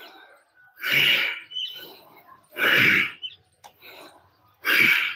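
Three sharp, forceful exhalations about two seconds apart, one with each swing of a heavy wooden mace (gada).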